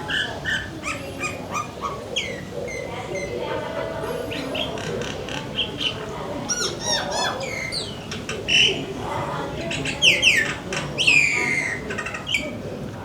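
Birds chirping and calling in short, quick falling whistles, busiest and loudest about ten to eleven seconds in.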